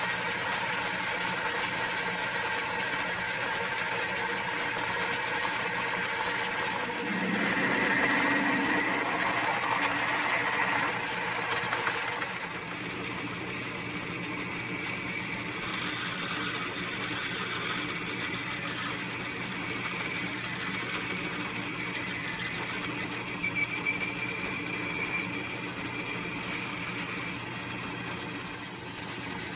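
Atlas 618 bench lathe running steadily while it drills and bores a metal pulley blank, a small motor and belt drive whine with the sound of the cut. It gets louder and brighter from about seven to twelve seconds in, then settles a little quieter.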